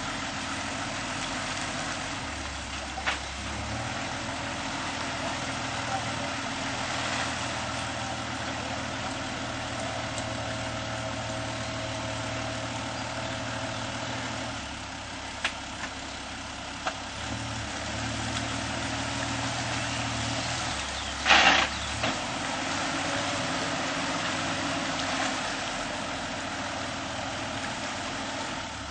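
Toyota Land Cruiser engine running under load in low gear as the vehicle struggles through a muddy stream crossing, its steady note stepping up and down in pitch several times. About two-thirds of the way through there is a brief loud rush of noise.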